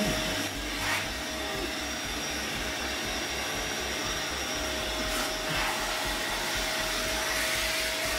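Canister vacuum cleaner running steadily, its hose wand sucking spilled dry powder off a hard floor. A faint steady whine sits under the airflow noise.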